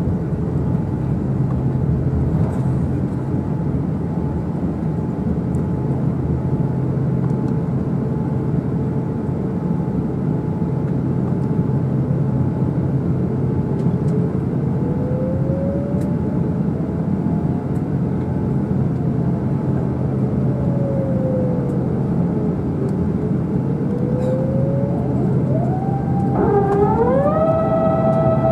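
Airbus A350-900 cabin noise: a steady rumble of the Rolls-Royce Trent XWB engines with a faint whine that slowly rises and falls in pitch. Near the end the engine whine climbs sharply in pitch, as when thrust is added.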